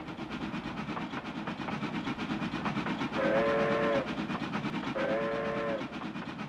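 A train running on the rails with a continuous rumbling clatter of wheels, and two blasts of the train's horn, each under a second long, in the middle.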